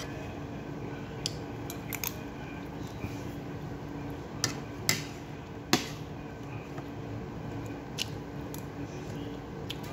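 Metal fork and spoon clinking and scraping against a plate of rice, a scattering of short sharp clicks with the loudest a little past halfway, over a steady low hum.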